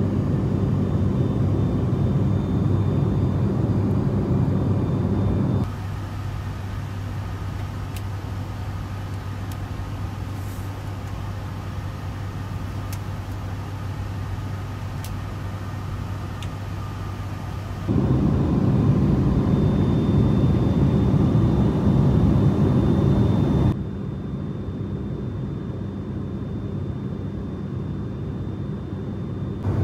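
Cabin noise of a turboprop airliner in flight: a steady engine and propeller drone with a low hum. It steps between louder and quieter stretches a few times, and a few faint clicks come through in the quieter middle part.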